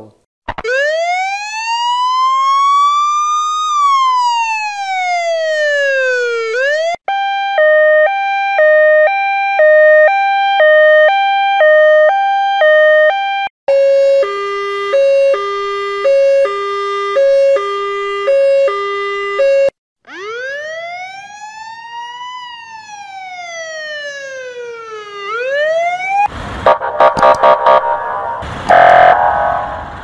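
A run of US emergency-vehicle sirens. First comes a slow wail that rises and falls once. Then two stretches of two-tone hi-lo, switching about once a second, the second pair lower in pitch. Another rising and falling wail follows, and near the end a loud, harsh blaring sound.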